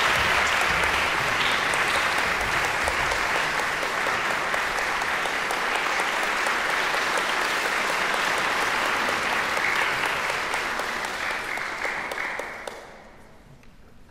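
Audience applauding steadily, then dying away quickly near the end.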